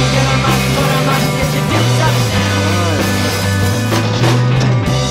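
Rock music with a loud, prominent bass line stepping between notes.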